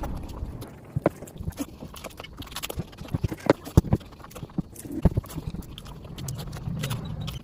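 Close-miked chewing and lip smacking of a person eating rice and curry, with many irregular sharp wet mouth clicks.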